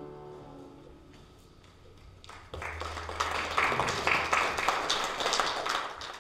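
Congregation applauding after a sung piece: a dense clatter of clapping that starts a little over two seconds in and stops abruptly at a cut. The last sung chord fades out at the very start.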